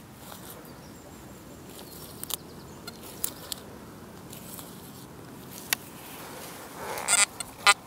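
Fingers crumbling and rubbing soil, with faint scratchy clicks. About seven seconds in, an XP Deus metal detector answers with a quick run of short, high-pitched beeps as the soil is passed over its search coil while a tiny target is pinpointed.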